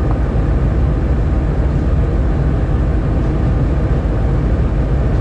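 Diesel freight locomotive's engine running with a steady low rumble, heard from on top of its hood as the train reverses at low speed during shunting.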